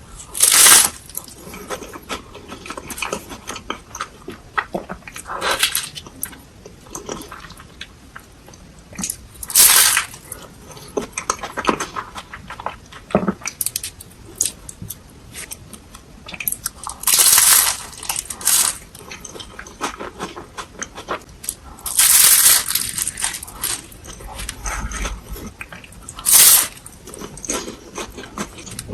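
Kitchen handling sounds while making fried ice cream cones: scattered clicks and taps of utensils and dishes, with about five short, loud crinkly or crunchy bursts.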